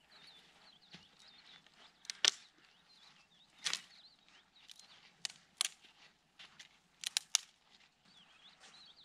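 Dry driftwood branches snapping as they are broken by hand for firewood: about six sharp cracks spread over several seconds, some coming in quick pairs.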